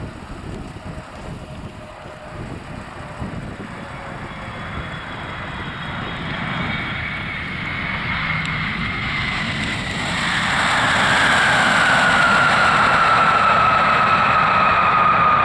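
Jet airliner's engines growing steadily louder as it approaches and passes close by. From about ten seconds in, a high whine slides down in pitch over the rumble.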